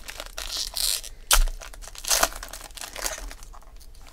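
Foil wrapper of a trading-card pack crinkling and tearing as it is ripped open and crumpled by hand, in a run of uneven crackles that thin out near the end.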